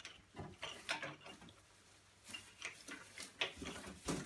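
Small handling sounds of scissors and a plastic bag on a cardboard box: scattered light clicks and rustles, with one sharper knock near the end.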